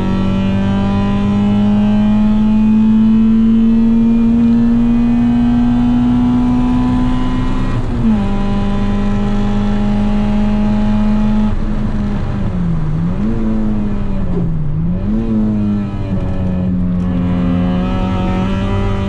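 Small hatchback's engine under hard throttle on a race track, heard from inside the cabin. The revs climb slowly through a gear, then drop sharply with a gear change about eight seconds in. They dip and recover twice in the middle, then hold steady again near the end.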